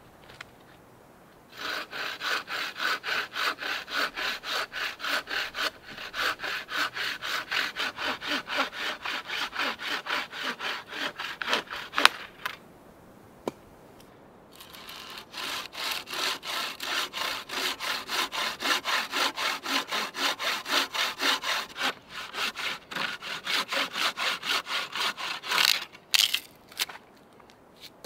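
Handmade bowsaw cutting through a log with quick, even back-and-forth strokes, about three a second, in two long runs with a short pause between. A few sharp knocks near the end.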